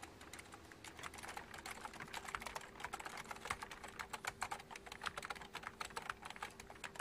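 Rapid, continuous typing on a computer keyboard, many quick irregular key clicks, with a faint steady tone underneath from about a second in.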